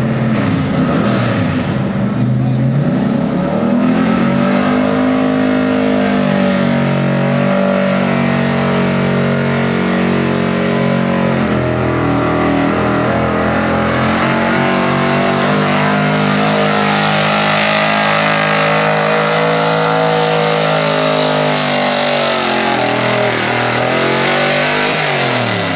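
Square-body Chevrolet 4x4 pickup's small-block V8 at full throttle, pulling a weight-transfer sled. The revs climb over the first few seconds, hold high with a couple of brief dips, then fall away sharply near the end.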